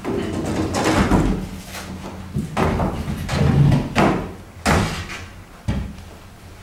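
Large canvases on wooden stretchers being pulled out of a rack and stood against each other: wood scraping and rustling at first, then a series of sharp knocks as the frames bump together and against the floor.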